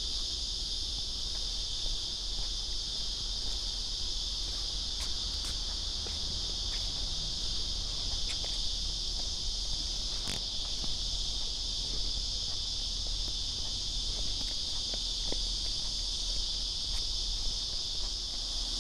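A steady, high-pitched insect chorus, a continuous shrill buzz, with a low steady rumble underneath and a few faint clicks.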